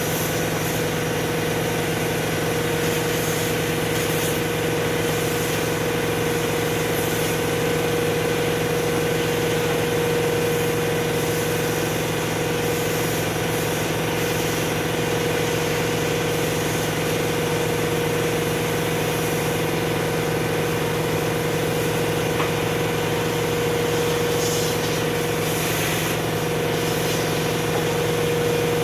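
Vacuum cleaner running steadily with a constant whine, its hose nozzle working over the needle bed of a flat knitting machine.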